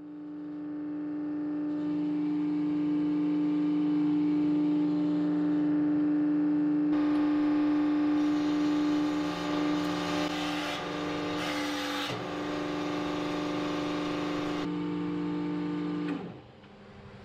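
Hydraulic press running with a steady motor hum as its ram presses cylinder sleeves into an aluminium Subaru EJ22 boxer engine case. About seven seconds in, a louder hiss joins the hum while the press works under load. Near the end the motor stops, its hum dropping sharply in pitch.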